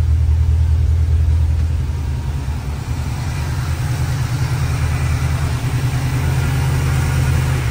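GM Performance crate 350 small-block V8 idling steadily with a low, even drone.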